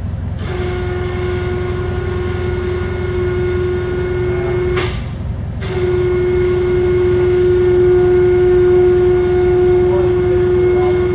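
Electric overhead hoist motor running with a steady hum while moving a suspended boat hull; it stops briefly about five seconds in, then starts again, a little louder. A constant low rumble runs underneath.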